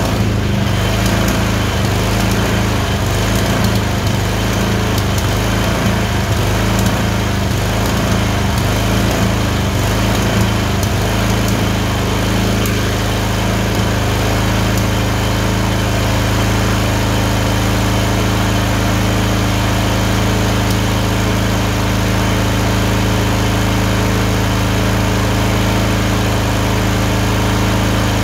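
Tecumseh 22 HP twin-cylinder engine running unevenly for the first dozen seconds, its beat broken by random misfires that alternate between the two cylinders, then settling into steady, even running for the rest.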